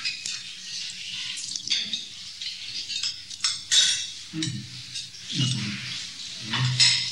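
Metal spoons clinking against bowls and plates as people eat, a scatter of sharp, irregular clinks.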